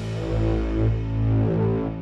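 Background music with held low notes that shift in pitch every half second or so.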